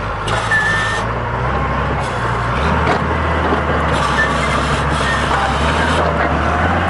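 Diesel crawler dozer engine running steadily while its hydraulics raise and lower the rear rippers; the engine's low hum shifts pitch about two and a half seconds in, with a brief high whine near the start.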